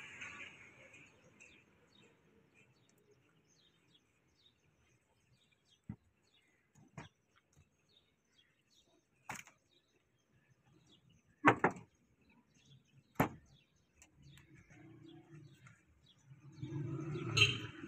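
A few separate sharp knocks and clicks of a butcher's cleaver and knife working a beef cut on a wooden chopping stump, the loudest about halfway through. Near the end a motor vehicle's engine comes in and grows louder.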